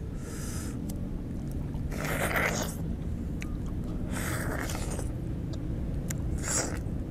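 Juicy orange pieces being bitten and sucked, four short wet, hissy bursts about two seconds apart, over a steady low rumble.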